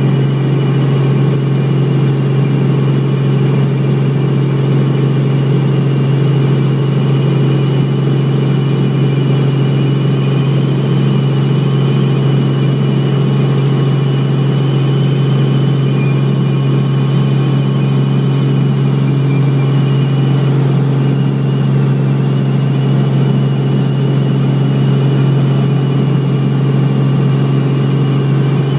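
Helicopter in steady flight heard from inside the cabin: a loud, constant low drone of engine and rotors with a thin steady high whine on top.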